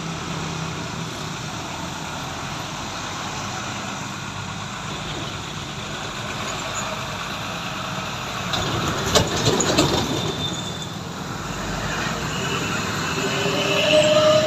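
Heavy trucks passing on a road: a steady rumble of engines and tyres, growing louder as a big truck goes by close about nine to ten seconds in with rattling and clanking.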